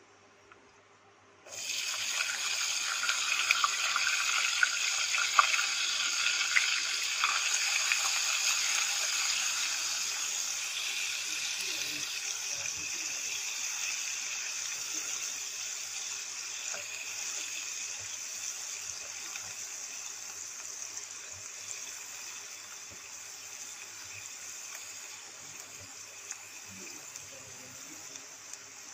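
Chopped onions dropped into hot oil in a frying pan: a loud sizzle that sets in suddenly about a second and a half in, full of fine crackles, then slowly dies down as the onions fry.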